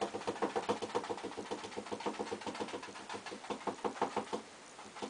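A small paintbrush dabbed rapidly against a stretched canvas, stippling in trees with acrylic paint. It makes a quick run of light taps, several a second, with a short break near the end.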